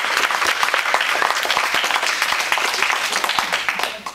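A small audience clapping, a dense patter of many hands, that stops fairly abruptly near the end.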